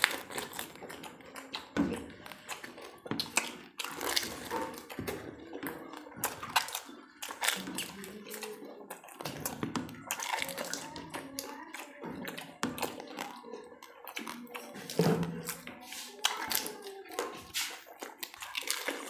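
Two people eating panipuri: crisp fried puri shells cracking and crunching in the mouth, with wet chewing, in many sharp, irregular crunches.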